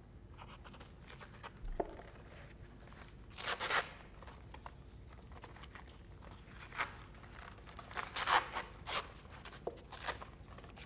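Masking tape being pulled off the roll and torn, wrapped around a folded-newspaper shape: a few short rasping strips, one about a third of the way in and several more close together near the end.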